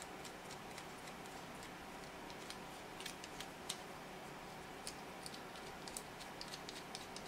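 Light, irregular plastic clicks from the threaded adjusting wheel of a small 3D-printed adjustable wrench being rolled by thumb, sliding the jaw; the threads turn freely.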